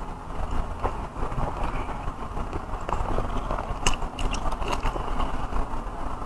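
Close-miked chewing and wet mouth sounds of a person eating rice and soft braised pork belly, with a cluster of sharp clicks about four seconds in, over a steady low hum.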